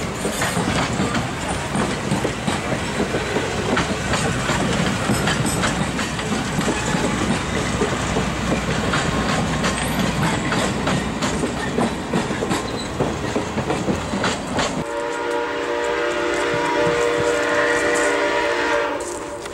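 Passenger cars rolling past close by, their wheels clicking over the rail joints. About fifteen seconds in the sound cuts to a distant locomotive sounding one long chord for about four seconds.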